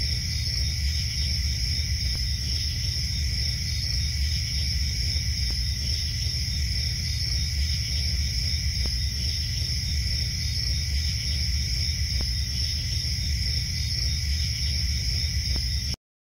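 Crickets chirping steadily as a night ambience over a low rumble, cutting off suddenly near the end.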